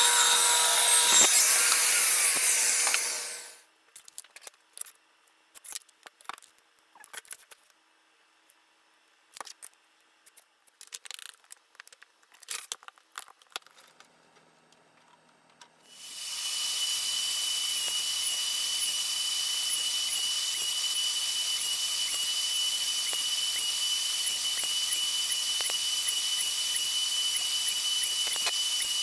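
A power saw runs and stops about three seconds in. Light clicks and taps follow as bar clamps are set on the wood. From about halfway, a Bosch table saw's motor runs steadily with a high whine.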